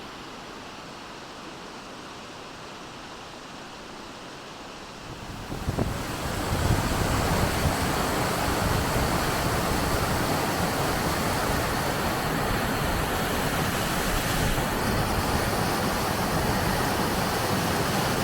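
Waterfall in a snow-melt mountain stream, a steady rush of falling water that grows much louder about five seconds in and stays there.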